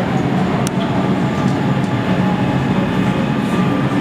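Kawasaki K-car streetcar creeping forward to couple to a disabled K-car, a steady hum and rumble of the cars' running equipment. There is one sharp click about two-thirds of a second in.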